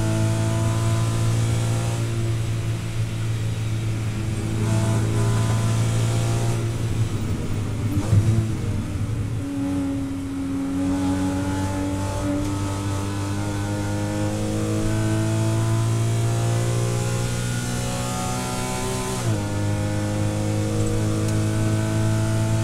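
Porsche Cayman 981's naturally aspirated flat-six race engine heard from inside the cockpit. It eases in pitch, then has a brief louder burst about eight seconds in as the car drops to third gear. It then pulls hard with its pitch climbing for about nine seconds, falls sharply at the upshift to fourth, and climbs again.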